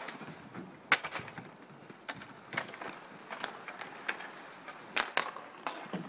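Inline skate wheels rolling and scraping on a hard outdoor rink, with sharp clacks of hockey sticks hitting the ball. The loudest clack comes about a second in, and several more follow.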